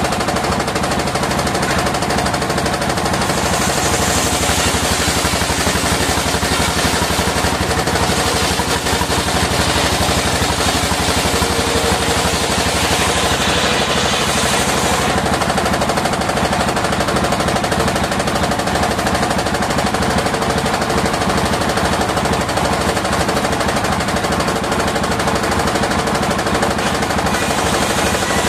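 Circular sawmill sawing waru wood: a steady, rapid mechanical chatter, with a higher hiss that swells while the blade is in the wood, about four to eight seconds in, again around twelve to fifteen seconds in, and near the end.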